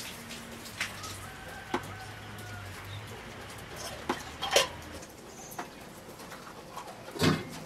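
Birds calling and chickens clucking, with scattered sharp clicks and one louder short sound near the end.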